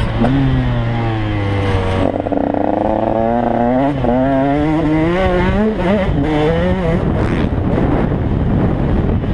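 KTM 150 XC two-stroke single-cylinder dirt bike engine under way on a motocross track, revving up and down, its pitch climbing and dropping again and again, with wind noise on the helmet microphone.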